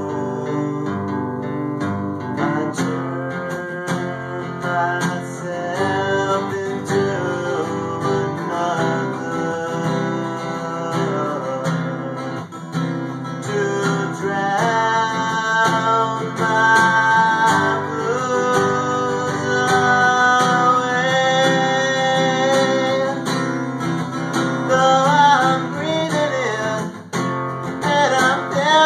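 Acoustic guitar strummed, chords ringing, with a man's singing voice joining over the guitar about halfway through.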